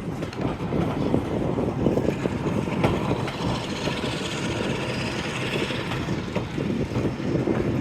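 Train running along the line: a steady rumble of wheels on rails with scattered clicks.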